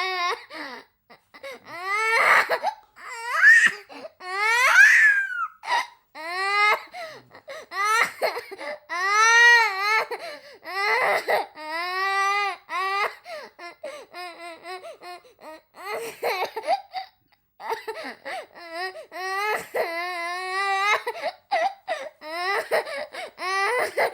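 A young child crying: a string of drawn-out wailing sobs, each arching up and down in pitch, with short breaks for breath between them.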